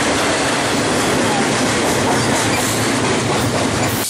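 Double-stack container cars of a BNSF freight train passing close by: the steady, loud running noise of steel wheels on the rails and the cars going by.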